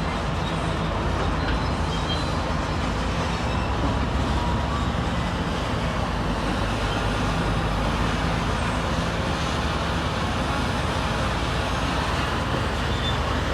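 Diesel engine of heavy construction machinery running steadily, a constant low engine drone under a wash of mechanical noise.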